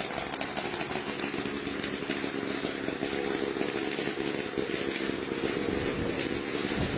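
Engine of a homemade helicopter running steadily at a constant speed.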